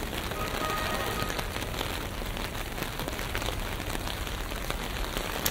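Steady rain falling on city streets, an even hiss with scattered sharp drip ticks.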